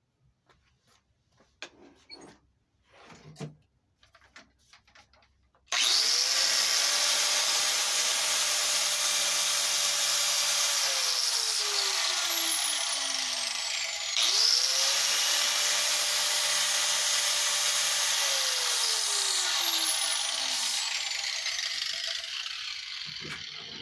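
A few light clicks of handling, then a handheld power tool starts with a quick rising whine and runs with a loud hissing grind. Its pitch sags off and it is started again about halfway through, before winding down near the end.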